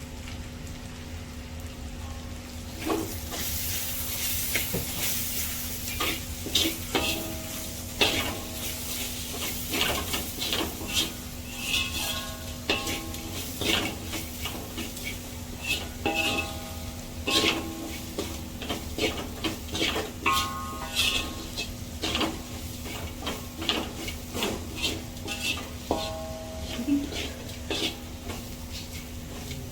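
Okra, beans and potato sizzling as they fry in a pan, starting about three seconds in. A spatula stirs them, with frequent metallic clinks and scrapes of the utensil against the pan.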